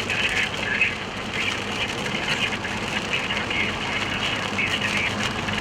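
Road and engine noise inside a moving car, a steady rumble with a constant low hum, with faint indistinct voices over it.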